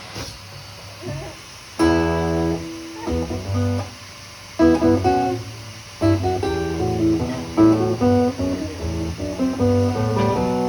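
Music on a plucked string instrument: a chord rings out about two seconds in, another phrase follows near five seconds, and steady playing of chords and melody continues from about six seconds on.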